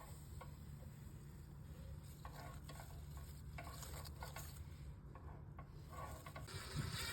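Faint intermittent scraping and clicking from handling work, over a steady low hum.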